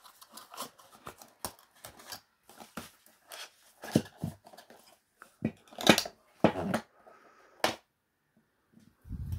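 Cardboard perfume carton being handled and opened: an irregular run of rustles, scrapes and clicks of paperboard, with a dull low bump near the end.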